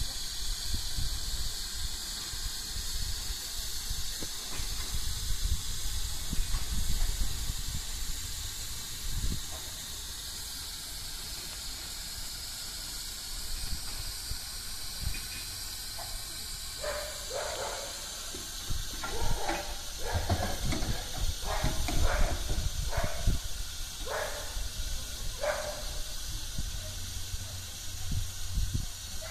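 Steam locomotive hissing steam steadily. In the second half it is joined by a run of short, sharp sounds, roughly one a second.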